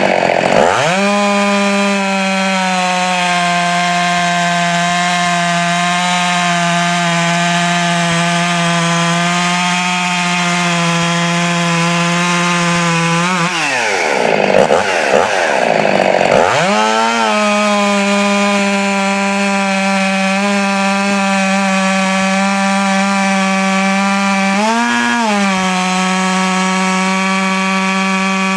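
Fully ported Jonsered 2171 71cc two-stroke chainsaw running at high revs. Its pitch drops and the sound roughens as it cuts wood, right at the start and again about halfway through, then it climbs back to a steady high tone. It blips up briefly near the end.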